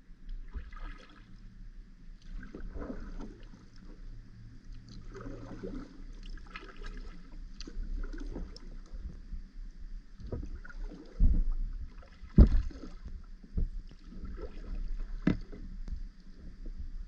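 Kayak paddle strokes splashing and swishing in the water, one every second or two, with two sharp louder thumps a little past the middle.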